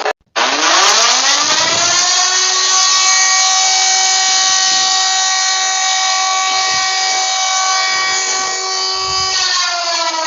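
Civil-defence siren, loud: it winds up in pitch over about two seconds after a brief cut-out, holds a steady wail, then begins to wind down near the end.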